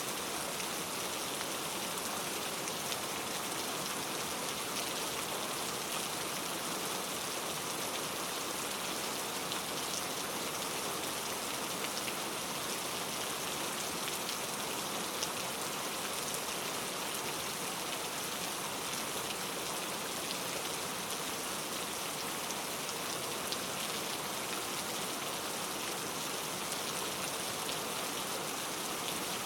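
Steady rain falling without a break: an even hiss with many single drops ticking through it.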